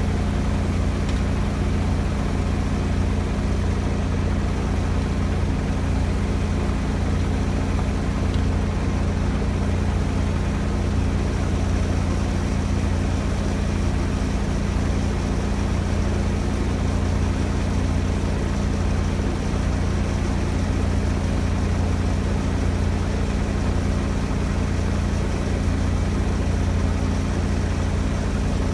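Large diesel engine idling steadily, a constant low hum.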